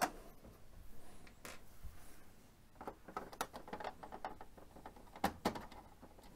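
Phillips screwdriver turning out small screws from a printer's plastic panel: faint, scattered clicks and scrapes, with two sharper clicks close together about five seconds in.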